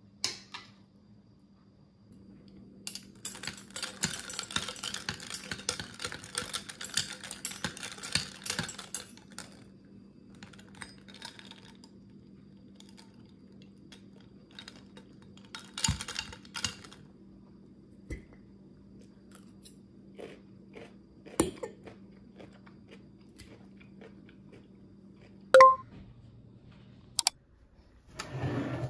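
Tableware handling at a meal. Metal tongs scoop and rustle salad onto a plate for several seconds, then come scattered clicks of cutlery against plates and glass. Near the end there is one sharp clink that rings briefly, and a faint low hum underneath.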